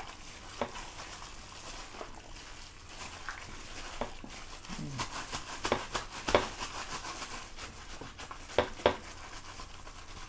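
A plastic-gloved hand mixing and kneading oiled, marinated pork pieces in a stainless steel bowl: a soft crinkle of the glove with irregular light clicks and taps of meat and hand against the bowl, a few sharper ones about halfway through and again near the end.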